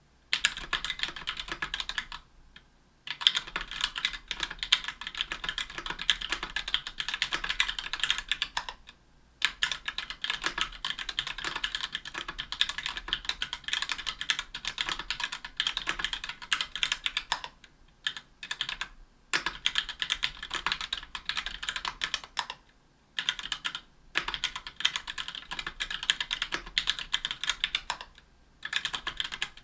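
Fast continuous typing on a 60% aluminium mechanical keyboard with linear Gateron Black Ink switches and GMK keycaps, a dense stream of key clacks broken by a few short pauses.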